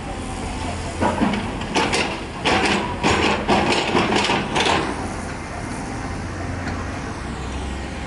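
Komatsu tracked excavator's diesel engine running steadily. From about a second in to about five seconds, a run of loud, irregular scraping and clattering as the bucket works into stony rubble.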